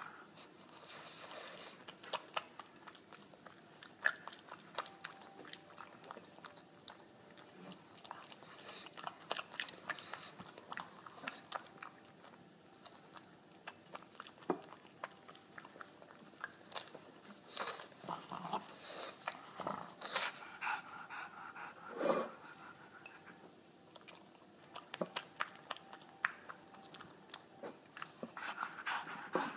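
A pug chewing and eating chunks of food, with irregular wet clicks, smacks and crunches, a few louder than the rest.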